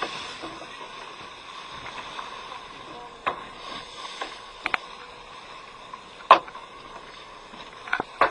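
General deck noise aboard a fishing boat at sea: a steady hiss under a few sharp clicks and knocks, the loudest about six seconds in.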